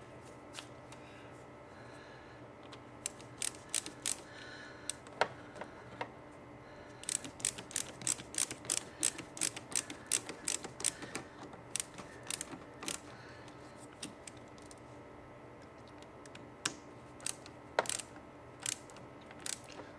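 Ratcheting clicks from a hand tool tightening a fitting on the oil catch can's hose. The clicks are scattered at first, come in quick runs of several a second from about seven to thirteen seconds in, then thin out again.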